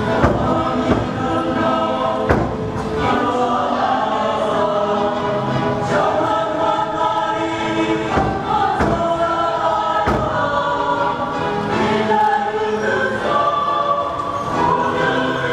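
Church choir singing a hymn in long, held notes, with a few dull thumps through it.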